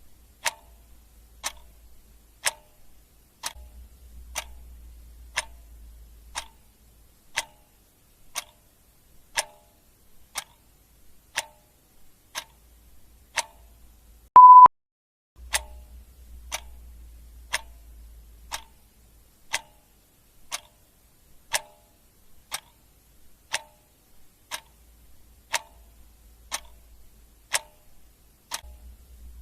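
Clock ticking sound effect, a steady tick about once a second. About halfway through, a single short high beep sounds, louder than the ticks.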